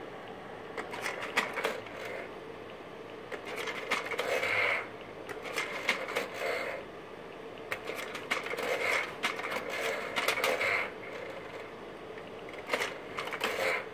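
Kodak Carousel 760H slide projector's slide-change mechanism working, with about six short bursts of clicking and whirring, over the steady hum of the running projector.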